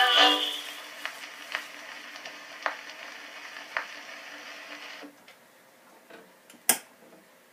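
Edison Amberola 30 cylinder phonograph after the recording ends: the last of the music fades, then the stylus runs on in the cylinder's blank grooves with surface hiss and a few scattered ticks. About five seconds in the hiss stops, and a single sharp click follows near the end.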